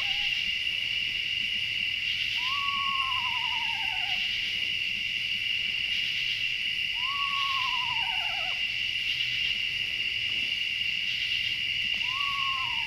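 An owl calling three times, about four to five seconds apart, each call a quavering whinny that falls in pitch. A steady high chorus of night insects runs underneath.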